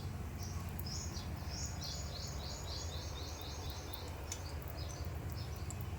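A small bird singing high chirps, with a quick run of about eight repeated sliding notes near the middle, over a steady low rumble.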